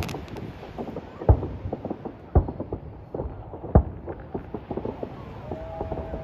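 Fireworks going off: three loud booms about a second apart, over many smaller pops and crackles.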